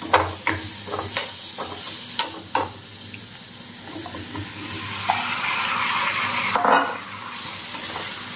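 Chopped potatoes going into a hot kadai of frying tomato and spice masala: sizzling, with several sharp clinks of a metal spoon against the pan in the first three seconds. The sizzle grows louder about halfway through as the pan is stirred.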